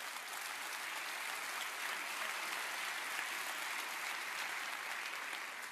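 A large congregation applauding, an even patter of many hands clapping that holds steady and tapers off near the end.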